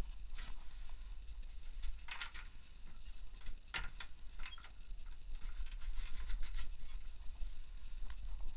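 Footsteps and knocks on the wooden planks of a treehouse, an irregular patter of hard knocks, the sharpest about two and four seconds in, over a steady low rumble.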